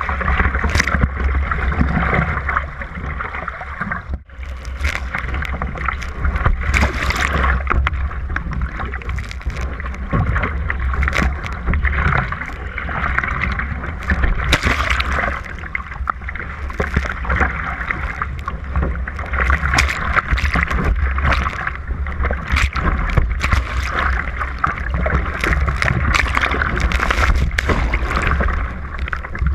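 Water rushing and splashing against the bow of a surfski as it is paddled through choppy waves, with many short, sharp splashes from spray and paddle strokes over a constant low rumble of wind on the microphone.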